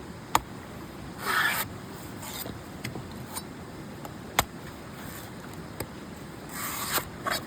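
An old coconut being handled, with short rasping, scraping bursts about three times and a few sharp taps or clicks.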